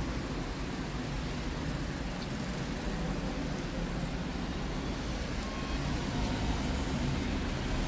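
Steady low rumble of street traffic, with no distinct events.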